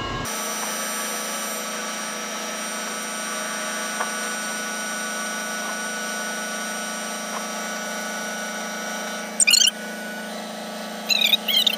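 Ship's deck crane machinery running with a steady engine hum. Near the end come two short, loud, wavering high-pitched squeals.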